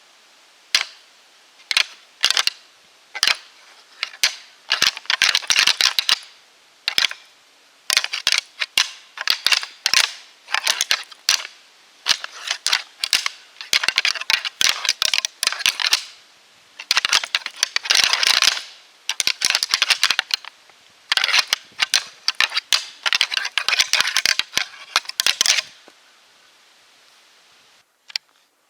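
Whitetail buck snort-wheezing: repeated sharp puffs of air forced through the nose, some in quick runs and some drawn out into longer hissing wheezes, stopping near the end. It is the aggressive threat call of a rutting buck.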